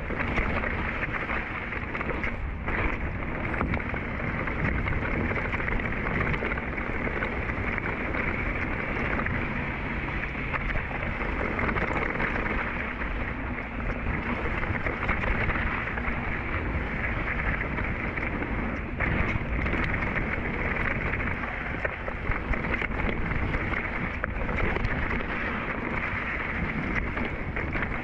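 Rushing wind on the microphone and the knobby tyres of a Rocky Mountain Thunderbolt mountain bike rolling fast over a dry dirt trail, a steady rough noise during a downhill run.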